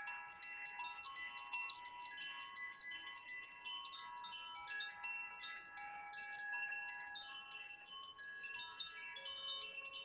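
Wind chimes ringing, with many quick overlapping metallic strikes at several bright pitches, each one ringing on.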